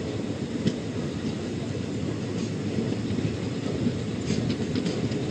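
Running noise of an express passenger train heard from inside a coach: a steady rumble of wheels on the rails, with a few faint ticks.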